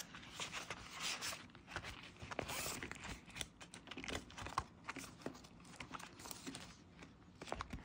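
Faint, irregular rustling and small clicks of Uno cards being tucked into a clear plastic binder pouch and the binder's pages being handled.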